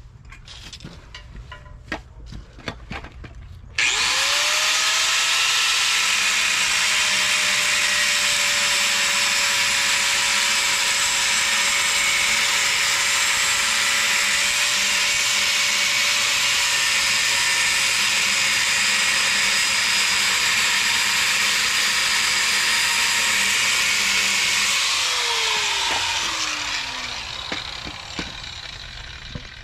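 Handheld angle grinder cutting through the steel axle tube of a Ford 8.8 rear axle. After a few light clicks it starts abruptly about four seconds in and runs steadily for about twenty seconds. It is then switched off and winds down with a falling whine.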